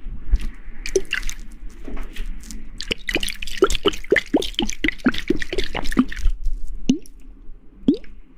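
Wet dripping sounds: a run of short plinks, each rising quickly in pitch, about four a second in the middle of the stretch and a few scattered ones near the end, over a soft wet hiss.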